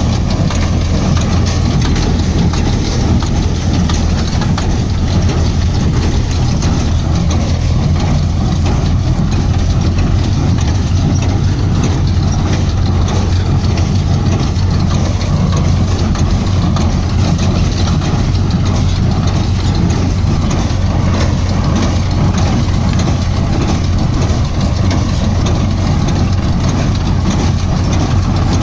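Machinery running steadily with a loud, even low hum and mechanical noise, without breaks or changes.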